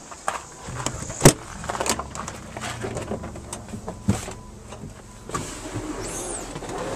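Truck cab door unlatched with a sharp clunk about a second in, followed by scuffs and knocks as someone climbs the metal steps into the cab.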